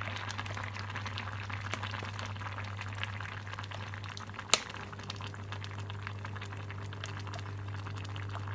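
Pot of bamboo-shoot soup at a rolling boil, a steady bubbling full of fine crackles over a constant low hum. One sharp clink about four and a half seconds in.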